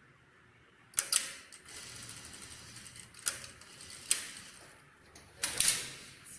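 JUKI industrial sewing machine clicking and clattering as a cuff is worked under its presser foot: sharp clicks about a second in, a steady stretch of running after them, then single clicks and a louder cluster near the end.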